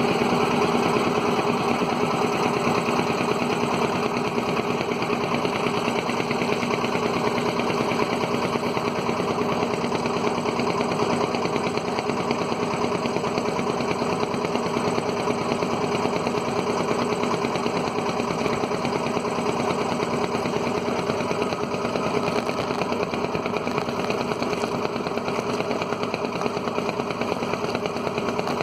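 Engine of a wooden river boat running steadily at a constant speed, a fast, even beat of firing strokes under a steady hum.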